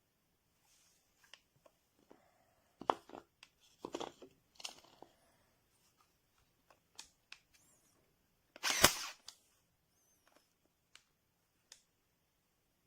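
Cordless staple gun being handled: scattered plastic clicks and knocks, a cluster of rattles between about three and five seconds in, and one loud, sharp snap about nine seconds in.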